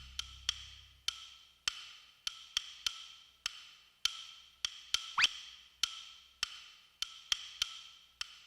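Sparse percussion music of wood-block-like clicks in a steady, ticking rhythm, roughly every half second with a few extra off-beat hits. A short rising whoosh sweeps up about five seconds in.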